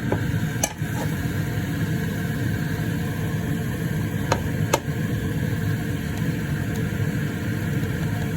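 A steady low hum from a running motor or fan, with a few light clicks.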